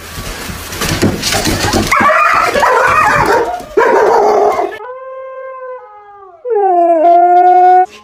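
A dog barking in a loud commotion with a sharp knock, then a dog howling in two long drawn-out notes. The second note is louder: it falls in pitch, is held steady, and cuts off just before the end.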